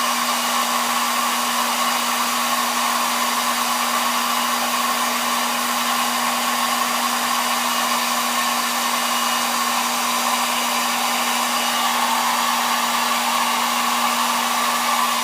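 Hot-air blower running steadily, a constant rushing whir with a steady hum, heating the phone's glass to soften the adhesive under it.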